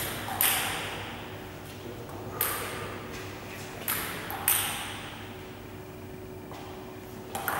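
Table tennis ball clicking sharply against a table or bat about six times at uneven intervals, each click followed by a short echo in a large hall.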